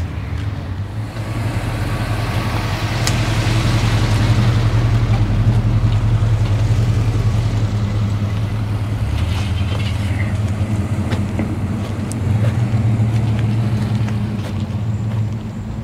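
A motor vehicle's engine running steadily at low revs, swelling louder for a few seconds early on and again near the end.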